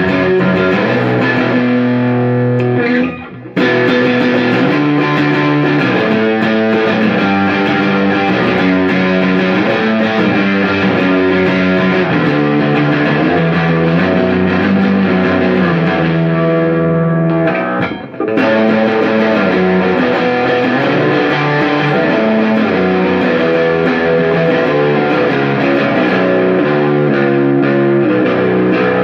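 Baritone electric guitar with single-coil pickups, amplified, played on two strings at a time as a continuous riff of sustained notes, with the pickup selector in the middle position. The playing breaks off briefly twice, about three seconds in and about eighteen seconds in.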